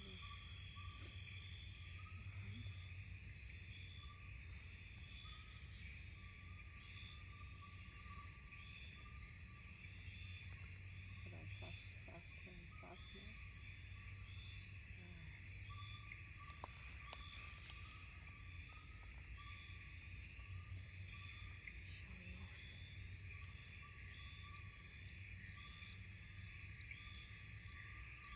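Insect chorus of crickets and cicadas: a steady, high-pitched trilling with no let-up. About 22 seconds in, one insect starts chirping in short, even pulses, two or three a second.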